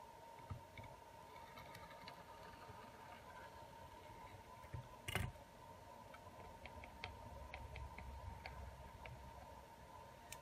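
Quiet handling of a phone's metal mid-frame and a glue tube on a silicone repair mat: a few light clicks and one sharper knock about five seconds in as the frame is turned, over a faint steady high whine.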